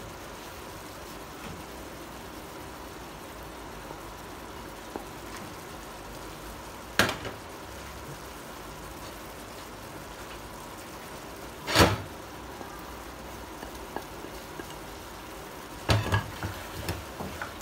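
Tomatoes and mutton sizzling steadily in a hot karahi on a gas burner. Two single sharp knocks come several seconds apart, then a quick run of knocks near the end as a wooden spoon starts stirring against the pan.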